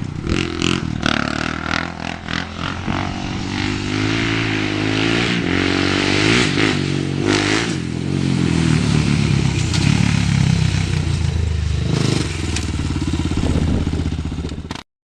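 Honda TRX400EX quad's single-cylinder four-stroke engine, fitted with a loud HMF slip-on exhaust, running under way, its revs rising and falling as it is ridden. Scattered knocks and rattles come in the first few seconds, and the sound cuts off abruptly near the end.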